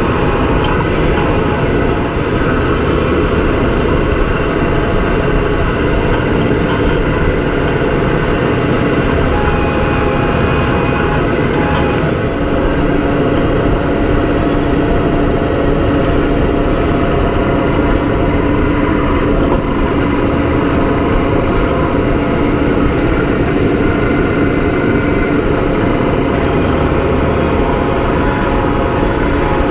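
Farm tractor engine running steadily and loudly, heard close up. A steady hum joins in about twelve seconds in.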